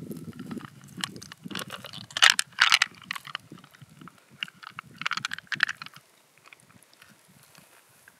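Wet squelching and crackling of freshwater mussel flesh being squeezed and pulled apart by hand, loudest about two seconds in and again around five seconds.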